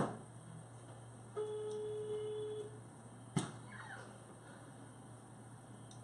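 Telephone ringback tone over a phone's speakerphone: one steady low tone about a second long, starting about a second and a half in, meaning the call is ringing and not yet answered. A single sharp click about halfway through.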